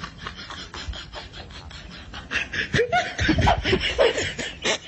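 People laughing, in short bursts of snickering and chuckling that grow livelier about halfway through.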